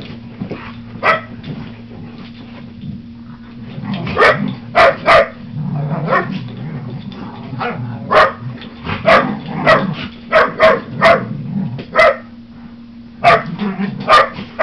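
Dogs barking during rough play: after about four seconds of quieter scuffling, more than a dozen short, sharp barks come in quick bunches, some about half a second apart.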